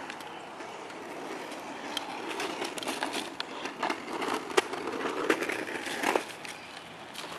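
Child's small bicycle rolling over rough asphalt scattered with dry leaves: a rumbling hiss of tyres with crackles and ticks, growing louder as it comes close and dropping away suddenly about six seconds in.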